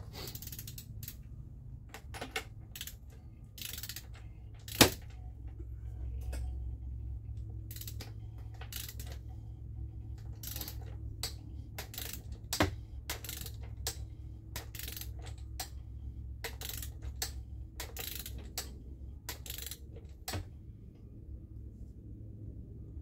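Socket ratchet clicking in a series of irregular strokes as it screws an oil filter adapter into an engine's oil filter housing, with one sharp metallic click about five seconds in as the loudest. A steady low hum runs underneath.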